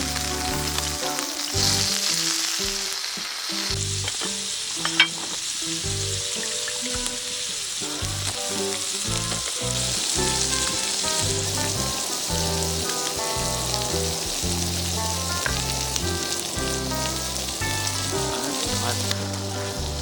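Food sizzling as it fries, a steady hiss under background music, with one sharp click about five seconds in.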